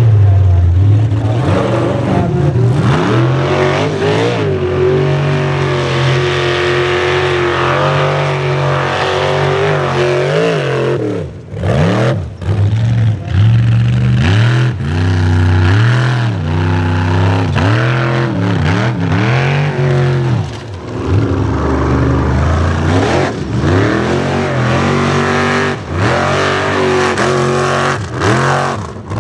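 Formula Offroad tube buggies' engines revving hard on a steep dirt hill climb. The pitch swings up and down with repeated throttle blips, and the sound drops away briefly a few times as the throttle is lifted.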